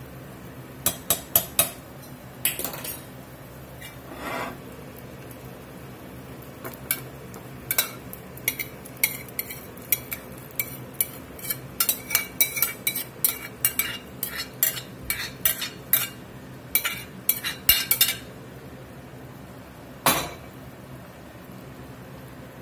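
A metal spoon clinking and scraping against an enamelled cast-iron pot while chili is stirred, with a dense run of quick clinks in the middle as browned beef is scraped from a glass bowl into the pot. One heavier knock comes near the end.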